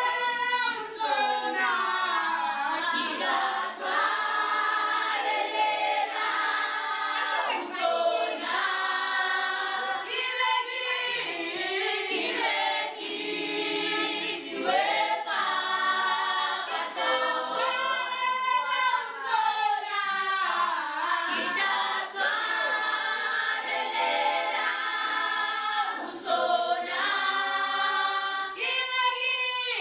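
A class of school students singing together as a group, many voices without instruments, carrying on as one continuous song.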